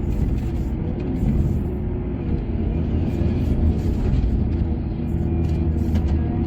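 Heavy mining machinery engine running steadily with a deep rumble, likely an excavator or ore truck, with background music underneath.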